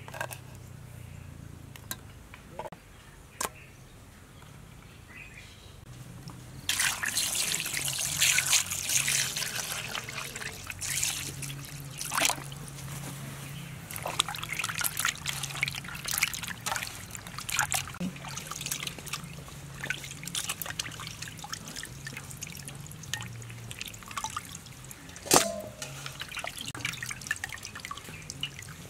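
Water running from a hose into a metal basin while skinned snake meat is washed by hand, with splashing and squelching strokes. A few knife chops on a wooden board come in the first few seconds, before the water starts about a quarter of the way in.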